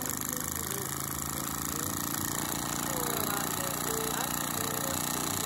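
Märklin 4113/6 toy donkey engine, a vertical spirit-fired boiler driving a small steam engine and flywheel, running under steam with a steady hiss.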